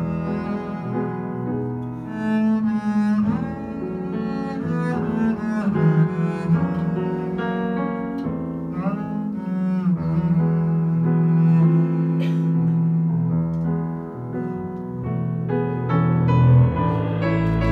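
Double bass played with the bow, holding long sustained notes, over jazz piano accompaniment.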